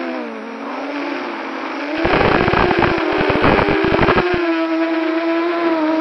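Onboard recording of a camera drone's electric motors and propellers whining. The pitch sags in the first second, then rises sharply about two seconds in as the throttle is opened, and holds steady after that. A burst of crackling rattle rides on it from about two to four and a half seconds in.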